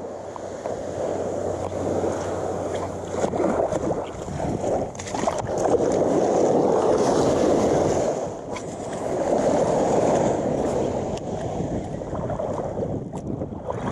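Small surf waves washing up on a sandy beach, swelling twice around the middle, with wind buffeting the microphone.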